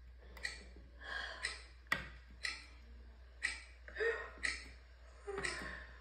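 A person making short, soft vocal sounds without words, several in a row about every half second to a second. There is a single sharp click about two seconds in.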